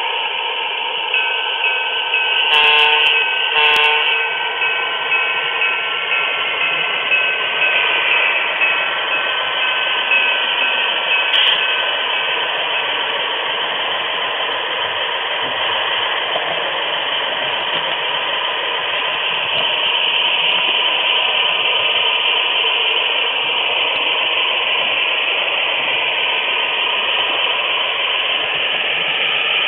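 HO scale model train running on the layout, heard from a small camera riding on a flat car: a steady rolling noise of wheels on the rails, with a steady whine over the first dozen seconds and two brief clicks about three and four seconds in.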